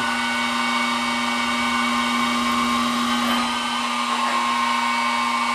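G0704 milling machine's spindle running at a steady speed with an even hum and whine, turning a center drill in a drill chuck to spot a hole in a steel plate.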